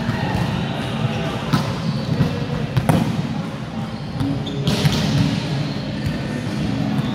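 Ball game on a hard court: scattered thuds and knocks over a steady hubbub of voices.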